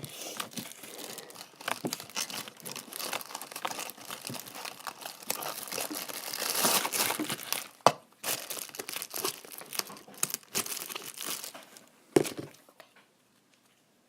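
Hands stretching and squishing a butter slime that has hardened up, giving a dense run of crackling, crinkling sounds with many small clicks. A single sharp knock comes about twelve seconds in.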